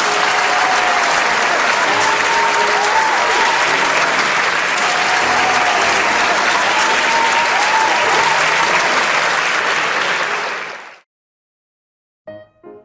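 A large crowd applauding, with some cheering over the clapping. The applause fades out about eleven seconds in; after a moment of silence, piano music begins near the end.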